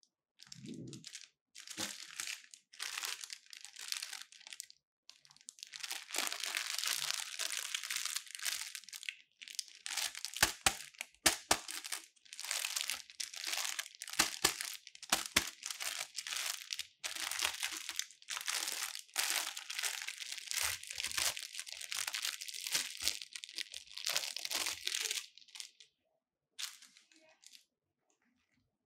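Clear plastic packaging sleeve crinkling and crackling as it is handled and pulled off a flexible gooseneck arm, in irregular spells with sharp crackles. The crinkling stops a few seconds before the end.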